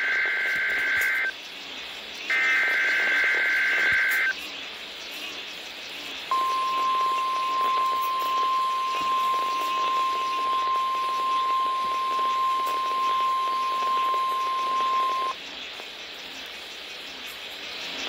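NOAA Weather Radio test alert tones. Two one-to-two-second bursts of the SAME header's buzzy two-tone digital data, about a second apart, come first. After a short gap, the steady 1050 Hz warning alarm tone holds for about nine seconds and then cuts off, over faint radio hiss.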